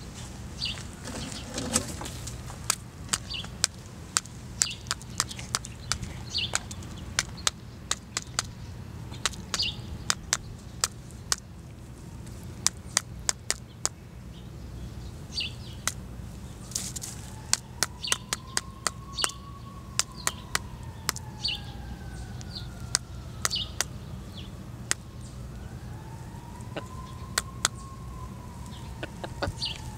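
Chicken-coop sounds around a hen: many sharp, irregular clicks and taps, and a short high bird chirp repeating about every second and a half. In the second half, a faint wailing tone rises and falls twice, like a distant siren.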